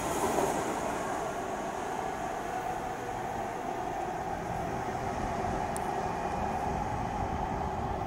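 Metro B Line subway train pulling out of the station and running off into the tunnel: steady rail and running noise from the departing cars, echoing in the underground station.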